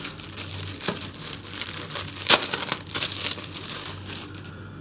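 Clear plastic card sleeve crinkling and crackling as it is handled and a greeting card is pulled out of it, in a run of small crackles with one louder crackle a little past two seconds in.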